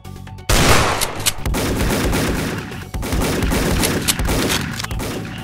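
Loud, rapid gunfire sound effect, dense and continuous, that starts suddenly about half a second in.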